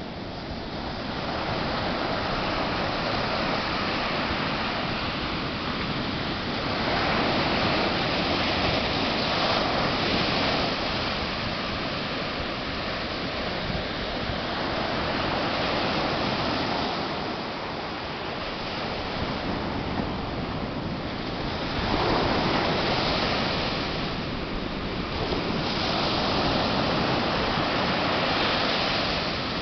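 Ocean surf breaking and washing up a sandy beach. It is a steady rush of water that swells and eases every few seconds as each wave comes in.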